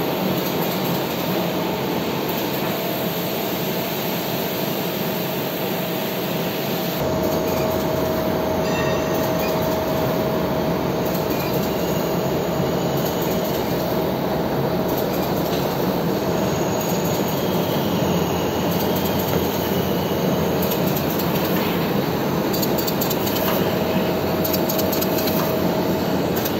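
Window patching machine for printed paper running at speed: a steady, rapid mechanical clatter with a constant tone running through it.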